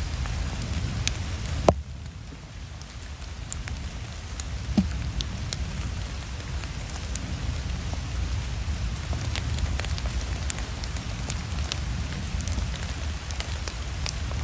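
Steady rain with scattered drops ticking close to the microphone over a low rumble. Two louder sharp taps stand out, one just under two seconds in and one near five seconds.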